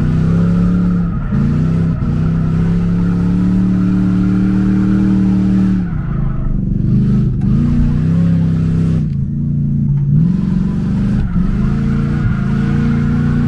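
A Lincoln car with a welded differential being driven hard, its engine revving and held at steady high revs. The revs drop and climb back several times, most clearly about six and nine seconds in.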